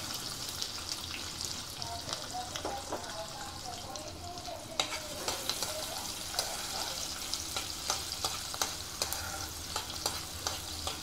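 Chopped onions sizzling in hot oil in a non-stick pan, a steady frying hiss. A spatula stirs and scrapes them, adding sharp clicks against the pan from about five seconds in.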